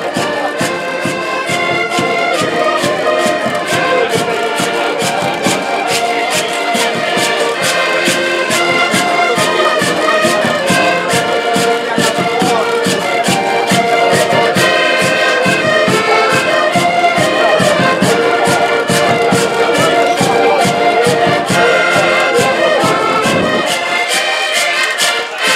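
Live Portuguese folk band playing: several accordions carry the tune over a steady beat on a large bass drum struck with a mallet.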